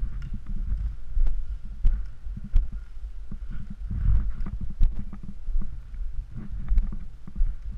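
Irregular low thumps of footsteps and gear movement, with scattered sharp clicks.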